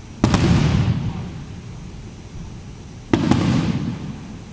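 Two aerial firework shell bursts about three seconds apart, each a sharp bang followed by a rumble lasting about a second.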